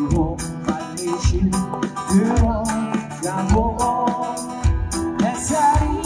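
Live busking song through a portable amplifier and speakers: a singer's voice over backing music with a steady drum beat, about one beat a second.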